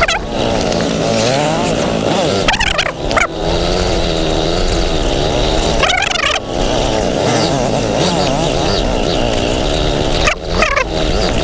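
Yamaha R15M's 155cc single-cylinder engine running on a climb over loose rock, its revs rising and falling unevenly with the throttle. The note dips briefly about three seconds in, around six seconds, and near the end.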